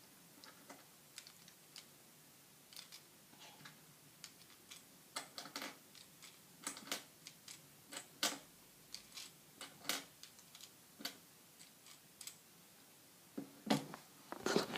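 K'nex plastic pieces of a toy gun's magazine clicking and knocking against each other as they are handled, in scattered irregular clicks that get louder and more frequent near the end.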